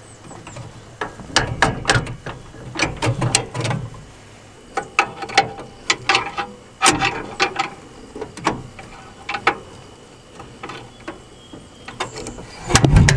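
Irregular runs of sharp metallic clicks and clinks from hand tools and parts being worked during reassembly of a garden tractor, some in quick ratchet-like runs. A heavier low thump comes near the end.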